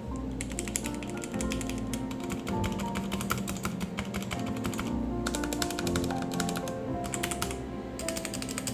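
Fast typing on a Revenger mechanical keyboard with red switches and newly fitted Sakura keycaps, the keys clacking in quick runs with short pauses between them, over background music.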